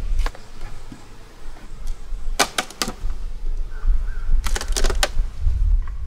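Sharp knocks on something hard. One comes just after the start, then a quick cluster of three or four about two and a half seconds in, and another about four and a half seconds in. Wind rumbles on the microphone throughout.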